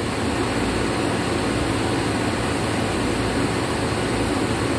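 Steady running noise of a powered-up printing press under load: an even whir with a low constant hum beneath it.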